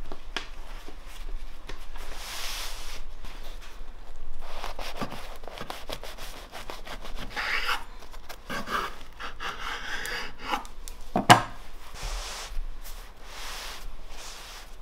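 Long knife sawing through shawarma rolls wrapped in thin lavash flatbread: irregular rubbing, scraping strokes and small taps of the blade on a wooden cutting board. One sharp knock about eleven seconds in.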